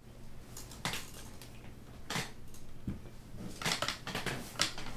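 Hands handling a paper dollar bill and small objects on a felt-covered table: a few short rustles and a light knock, over a steady low electrical hum.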